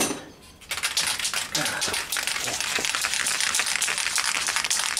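Aerosol spray paint can in use: a rapid run of rattling clicks over a steady hiss, starting about a second in.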